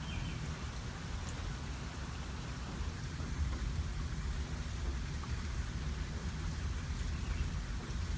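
Steady rain falling in a thunderstorm, with scattered drop ticks and a low, continuous rumble underneath.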